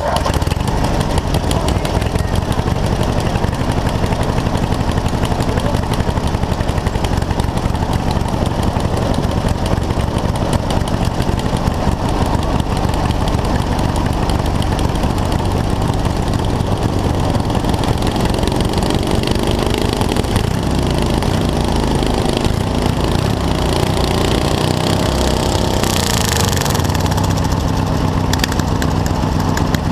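Lawn tractor engines running hard and steadily. Their pitch rises and falls about two-thirds of the way through as the engines rev, with a short hiss near the end.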